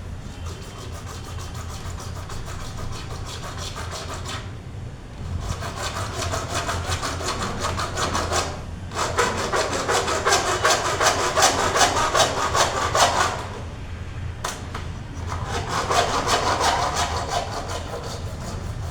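Hand sawing with rapid, even strokes in four bursts separated by short pauses, over a steady low hum.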